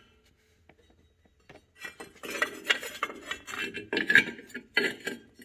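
Metal engine-mount heat shield clinking and rattling as it is worked into place over the engine mount: a run of small metallic knocks and scrapes starting about a second and a half in.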